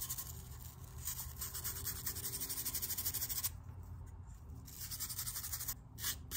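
Small wire brush scrubbing caked carbon off a clogged metal ATV muffler spark arrester screen in fast back-and-forth strokes. There is a short pause just past halfway, then the scrubbing starts again.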